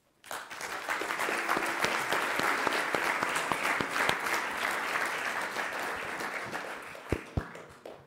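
Audience applauding: many hands clapping together, holding steady and then fading out near the end, with two low thumps as it dies away.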